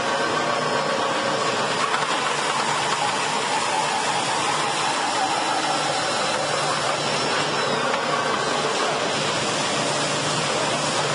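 Log-processing machinery running with a steady, even mechanical noise.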